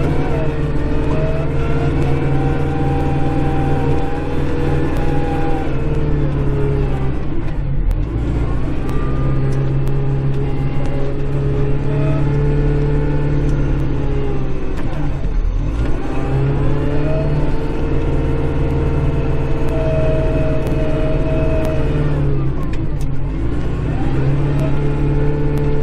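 Kubota Grand L5740 tractor's diesel engine working under load as it plows snow, heard from inside the cab. The engine speed drops and climbs back about every seven to eight seconds, three times.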